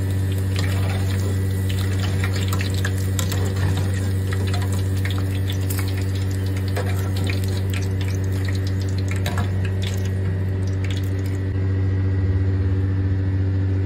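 Potatoes frying in a pan of hot oil: a continuous sizzle with many small crackles, over a steady low hum.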